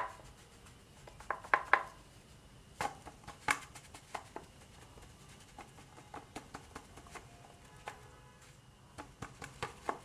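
Fingertips patting and pressing a ball of paratha dough flat on a floured plastic tray: scattered soft knocks, then a quicker run of light taps near the end, about three or four a second.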